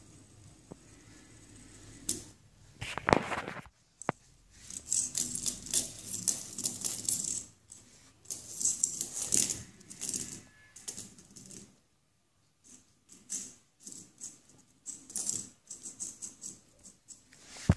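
Fidget spinner clattering and skittering on ceramic floor tiles as a cat bats it with its paw: bursts of rapid clicks and rattles, with a short pause about two-thirds of the way through.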